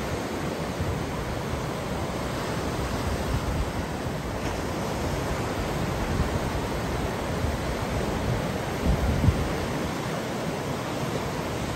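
Ocean surf breaking and washing up the beach in a steady rush, with wind buffeting the microphone at times.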